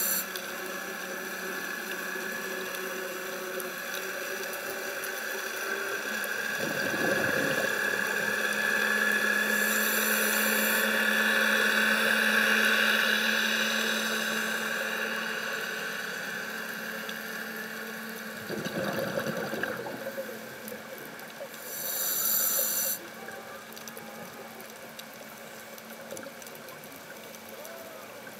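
Underwater sound of a scuba diver breathing through a regulator: a short hiss on each in-breath, three times, and two bursts of bubbles on the out-breaths, about twelve seconds apart. Under it runs a steady hum like a distant boat engine.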